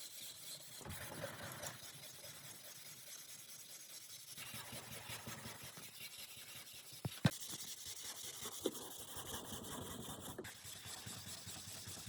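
Faint hand rubbing and scraping on a car door panel during bodywork repair, irregular strokes with a sharp click about seven seconds in and a smaller one shortly after.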